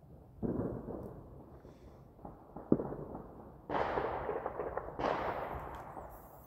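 Four explosive bangs, each echoing and dying away over a second or so: a boom about half a second in, a sharp crack near three seconds in that is the loudest, then booms near four and five seconds in.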